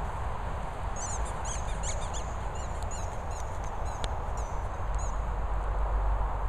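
A squeaky dog toy squeaked in rapid, high-pitched bursts as a Patterdale terrier chews it in its mouth. The squeaking comes about a second in and lasts a couple of seconds. A steady low rumble sits underneath.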